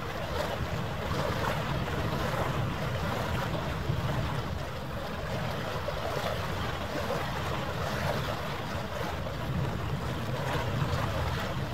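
Steady waterside wind and water noise, an even rushing hiss with no distinct events.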